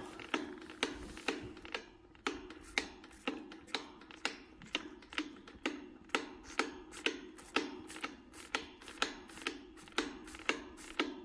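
Calf suckling milk from a teat feeder fitted with a valve, making even clicks about two and a half times a second without a break, keeping its rhythm. A faint steady hum runs underneath.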